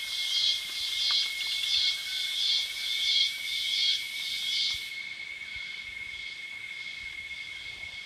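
Rainforest insects calling at dusk. A loud, high buzzing chorus pulses about three times every two seconds, then stops abruptly a little past halfway, while a steady high-pitched insect tone goes on underneath.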